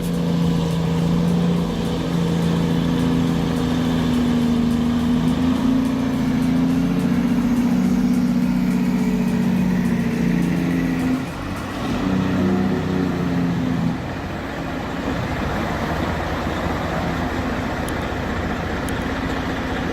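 Heavy truck's diesel engine running steadily under load with a low drone. About eleven seconds in it dips and changes to a rougher, noisier engine sound.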